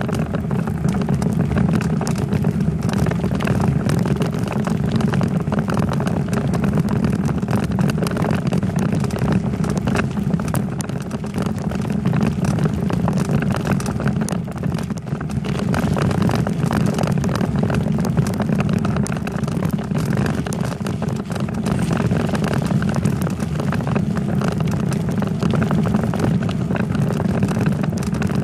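Steady rumble of a bicycle ride picked up by a camera mounted on the bike: road and wind noise, with many small rattles and knocks throughout.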